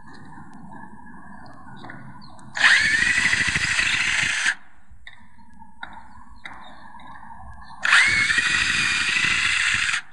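Battery-powered cordless drill boring mounting holes into a boat's transom through an anchor bracket: two runs of about two seconds each, the whine climbing as the drill spins up and then holding steady.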